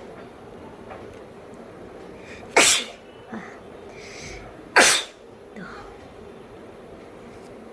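A woman sneezes twice, about two seconds apart. Each sneeze is a short, loud, explosive burst, with a faint breath drawn in just before it.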